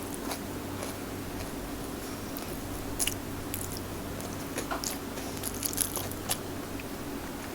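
Close-miked mouth sounds of a person chewing food, with scattered small crunches and wet clicks.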